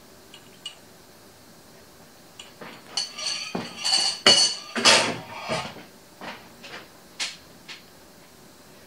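A spatula and bowl knocking and scraping against a glass mixing bowl while cookie batter is poured in and stirred. It is a run of clinks and scrapes that starts about two and a half seconds in, is densest in the middle, and thins to a few single knocks near the end.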